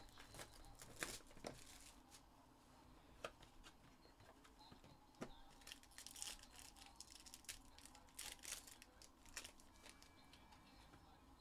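Faint crinkling and tearing of a foil trading-card pack wrapper, with cardboard hobby-box rustles and a few sharp clicks, in short scattered bursts.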